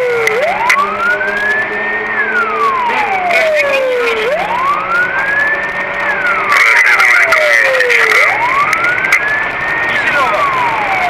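Police car siren in a slow wail, rising and falling about every four seconds, heard close and loud during a pursuit. A steady high tone joins it for a stretch a little past the middle.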